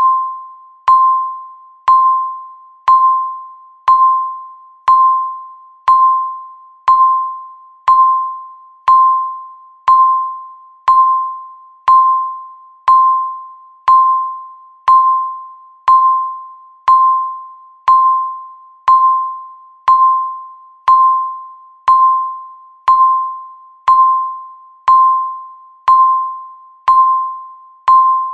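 Countdown timer beeping once every second, each beep a single mid-pitched tone that starts sharply and fades away. It ticks off the seconds left before the alarm.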